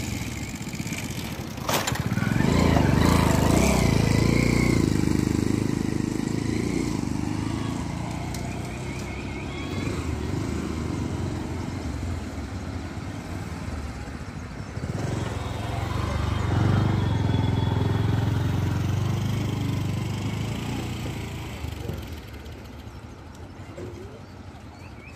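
Motor vehicle engines passing by twice: a low engine noise swells about two seconds in and fades away, then a second one passes in the latter half. A sharp knock comes just before the first pass.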